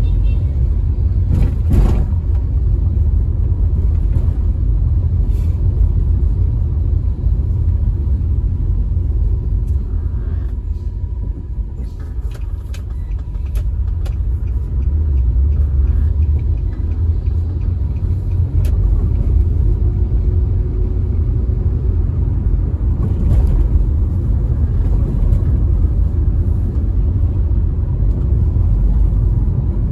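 Steady low road and engine rumble of a car being driven, heard from inside the cabin, easing a little about a third of the way in. A few faint knocks and clicks come through now and then.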